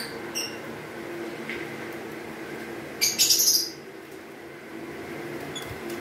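Caged lovebirds chirping: a few short, high chirps near the start, then a loud burst of shrill calls about three seconds in.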